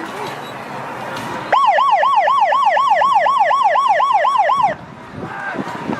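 Electronic siren in a fast yelp, a quick rising-and-falling wail repeating about four times a second. It sounds for about three seconds, starting abruptly about a second and a half in and cutting off suddenly near the end.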